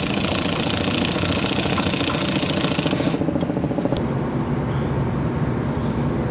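Cordless Makita impact wrench hammering fast on a bolt for about three seconds, then stopping abruptly. A steady low rumble continues after it.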